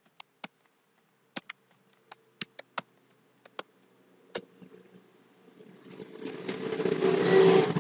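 Computer keyboard keystrokes as a short phrase is typed, a dozen or so sharp taps that stop about four and a half seconds in. A rumbling noise then swells up and is loudest near the end.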